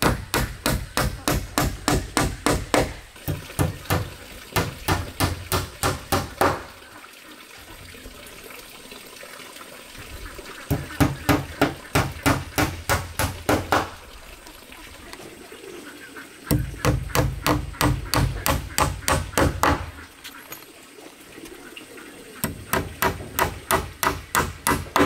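Steel claw hammer driving nails into wooden floor planks, the blows coming quickly, about four a second, in five runs of a few seconds each, with short pauses between them.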